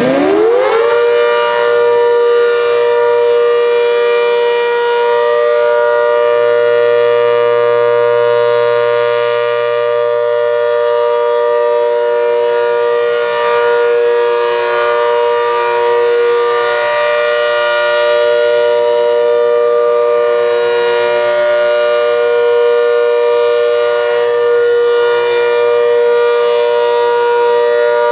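ACA Hurricane outdoor warning siren finishing its wind-up in the first second, then holding a loud, steady chord of several pitches with a slight wavering.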